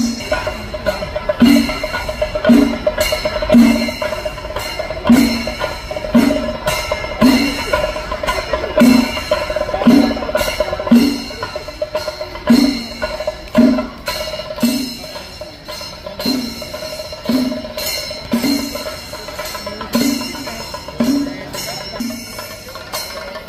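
Kerala temple festival percussion: drums beating a steady pattern of paired strokes about once a second, over bright metallic cymbals ringing without a break.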